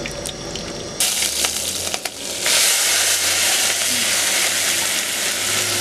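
Hot oil in a wok crackling lightly, then about a second in chopped tomatoes, onion and green chillies hit the oil and fry with a loud, steady sizzle.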